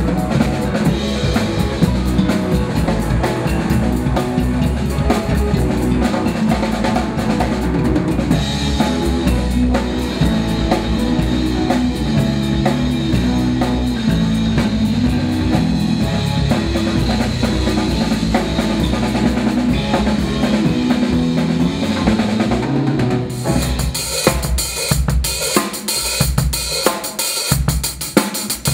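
Live band jamming at a sound check: drum kit with kick, snare and cymbals under a moving bass line. About three quarters of the way through the bass drops out and the drums carry on alone with busy cymbal work.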